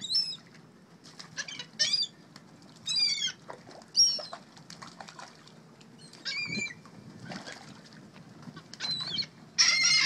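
Laughing gulls calling as they swoop for bread on the water: short, harsh, repeated cries, about eight in all, the loudest and longest near the end, with wings flapping.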